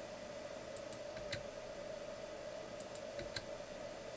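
Computer keyboard key presses and mouse-button clicks, in two short clusters about a second in and around three seconds, over a steady faint hum.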